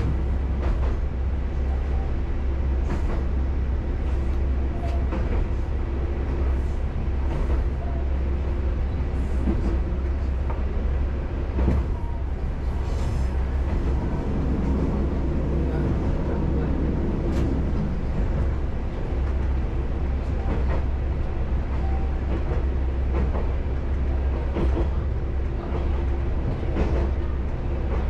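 Isumi Railway diesel railcar running along the line, heard from inside: a steady low engine and running rumble, with scattered clicks from the wheels crossing rail joints.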